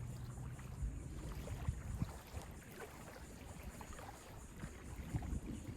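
Faint ocean waves and wind, an even wash of noise with a low rumble and a few soft thumps.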